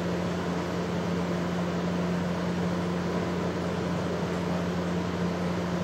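Steady low hum with an even hiss over it: constant background room noise, with no change in pitch or level.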